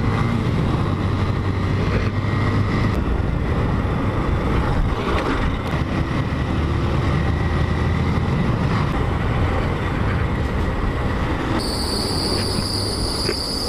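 Motorcycle engine running while riding, with wind and road noise; the low engine note shifts a few times as the throttle changes. About twelve seconds in, a steady high whine joins it.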